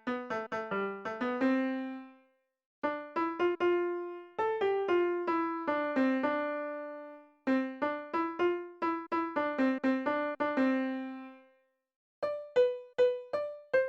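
Background music: a keyboard melody of quickly struck single notes that ring and fade, played in short phrases with two brief silences between them.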